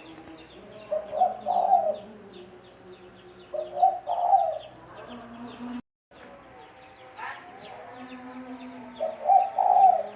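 Spotted dove (tekukur) cooing: three phrases of a few short notes each, about a second in, about four seconds in and near the end, over faint chirping of other birds.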